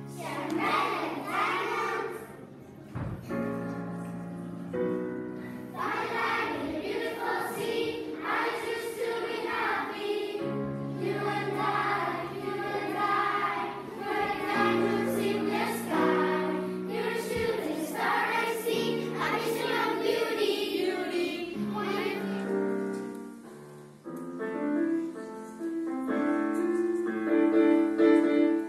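Children's choir singing a song together. About 24 seconds in it gives way to a solo piano playing.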